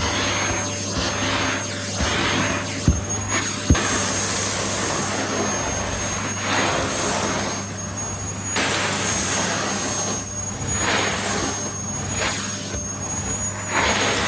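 Numatic Henry XL Plus vacuum cleaner fitted with a Dyson motor running: a steady high whine and low hum over rushing airflow that swells and fades. Two sharp knocks about three seconds in.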